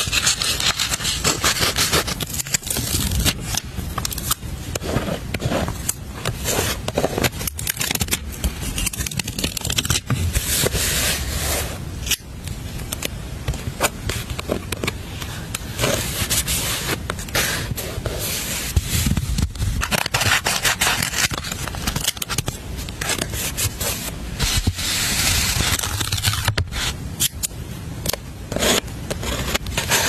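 Close-miked handling of paper stickers on a notebook page: irregular scraping, rubbing and crackling as stickers are handled and pressed down by fingertips, with many small clicks and taps from metal tweezers.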